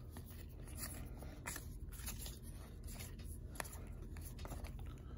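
Topps baseball cards being flicked through by hand: a series of faint, irregular flicks and scrapes as each card slides off the stack.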